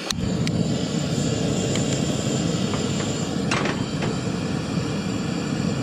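Gas camp stove burner lit with a click, then burning with a steady rush of flame. A few light metal clinks as the pot is moved onto the grate, the loudest about three and a half seconds in.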